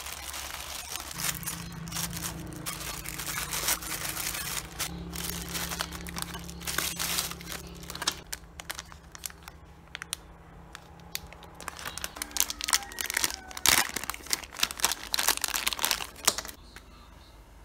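Plastic courier mailer and plastic packaging bags crinkling and tearing as they are opened by hand, with a quieter spell in the middle and denser, louder rustling near the end.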